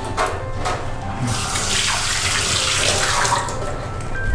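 Kitchen tap running into a stainless steel sink, water splashing as hands are washed under it, with a few light knocks.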